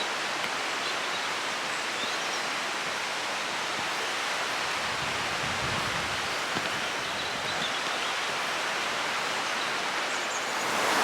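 Steady rushing of a river running over rocks, growing a little louder near the end.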